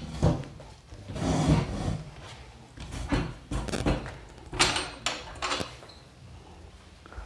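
Irregular knocks, rubs and scrapes from handling a folding table with a hard plastic (HDPE) top and metal legs as it is shifted and worked on from underneath.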